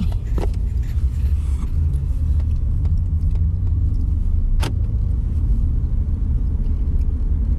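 Steady low rumble of a vehicle's engine and road noise heard from inside the cabin while driving. A single sharp click sounds about four and a half seconds in.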